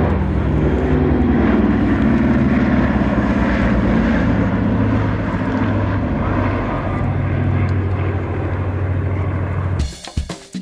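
B-29 Superfortress's four radial engines droning steadily as it flies past overhead, the pitch shifting a little about halfway through. Near the end the sound cuts abruptly to music with a percussive beat.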